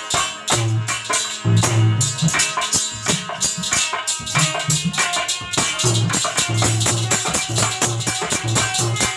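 Aalha folk music: a drum beating a steady pattern of low strokes under rapid, dense jingling percussion.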